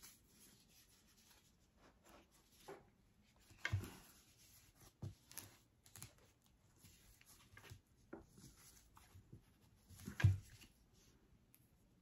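Faint handling sounds as a faux-leather wrap is fitted around a metal hand coffee grinder: soft rubbing and scattered light clicks, with two louder knocks about four seconds in and again about ten seconds in.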